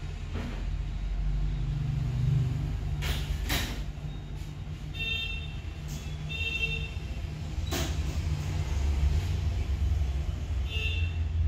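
Steady low rumble of road traffic, with three short horn-like beeps, about five, six and a half and eleven seconds in, and a few sharp knocks.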